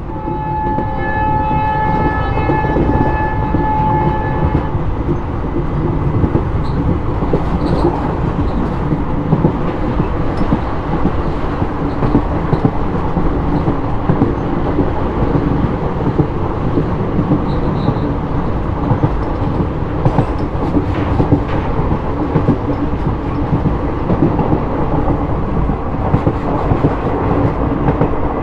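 Diesel locomotive horn sounding one long steady blast for about the first four and a half seconds, over the rumble of the moving train. After that the express runs on with a steady rumble and clatter of wheels on rail.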